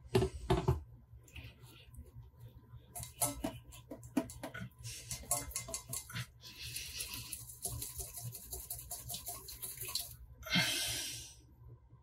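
Light clicks and knocks of a coffee maker's plastic filter basket and stainless-steel carafe being handled. A hiss runs for a few seconds past the middle, and a short rush of noise comes near the end.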